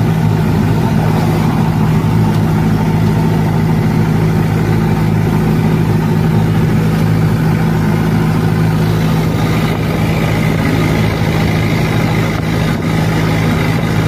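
Truck engine running steadily at cruising speed, with a loud even drone heard from inside the cab.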